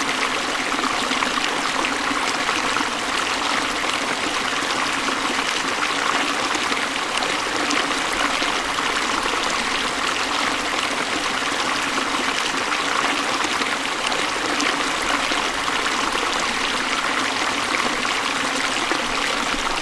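River water flowing and burbling over stones, a steady rushing with fine splashing detail.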